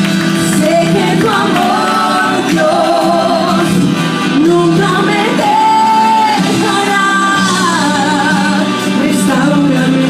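A woman singing a Spanish worship song into a microphone over instrumental accompaniment, her voice wavering with vibrato and holding a long note about halfway through.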